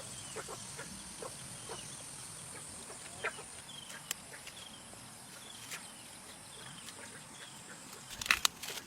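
Sporadic short chirps and clucks of farmyard fowl over a faint steady high hiss, with a brief cluster of sharp knocks near the end.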